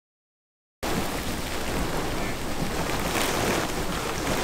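Heavy tropical-storm rain pouring down: a dense, steady hiss with a low rumble underneath, starting abruptly a little under a second in after silence.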